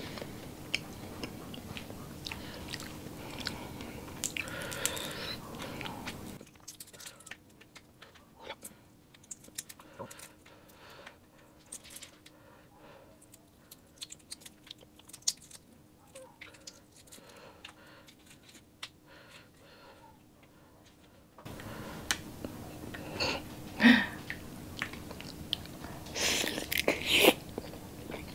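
Close-miked chewing and wet mouth sounds of someone eating balut (boiled duck egg), with many short lip smacks and clicks. The sounds are quieter through the middle and louder near the end.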